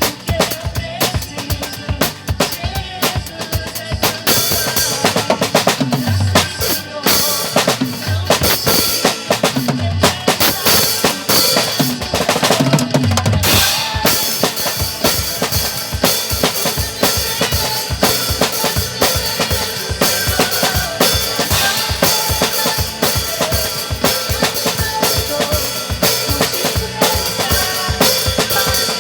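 Acoustic drum kit played along with the song's music: bass drum, snare and cymbals keeping a steady groove, with a stretch of rapid, busy strokes in the first half.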